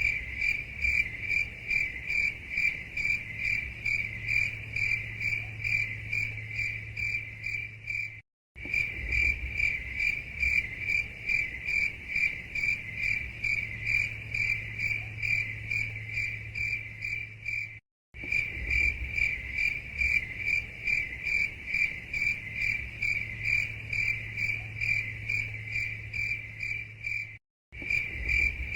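Crickets chirping in a steady, even rhythm of about three to four high-pitched chirps a second. The sound cuts out completely for a split second three times, where the recording is joined.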